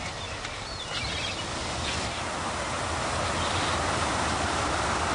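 Churning water of a ferry's wake rushing, with a steady low engine hum beneath; the water noise gets louder about a second in.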